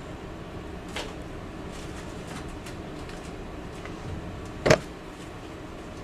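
Sterile surgical gloves being pulled on: faint crinkles of glove and wrapper, then one sharp snap about three-quarters of the way through, over a steady background hum.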